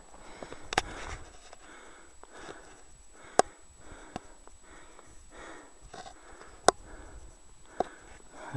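A person breathing hard and fast, about one breath every two-thirds of a second, winded from the climb. A few sharp clicks fall among the breaths, the loudest about three and a half and about seven seconds in.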